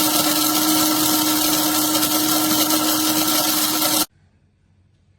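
Amazon Basics electric blade coffee grinder's motor running steadily, stopping abruptly about four seconds in.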